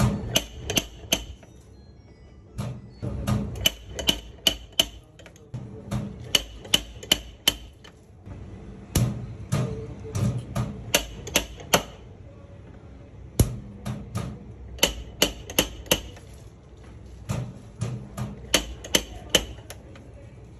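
Light hammer taps on a car body panel in paintless dent repair, in quick runs of four to six strikes with short pauses between.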